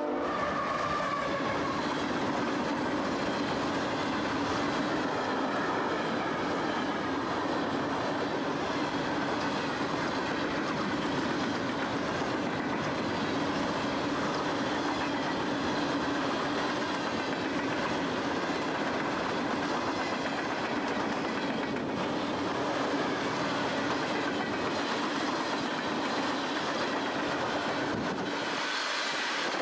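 CSX freight train of empty coal hopper cars passing close at speed: a steady rumble and rattle of wheels over the rails, with a steady low drone underneath.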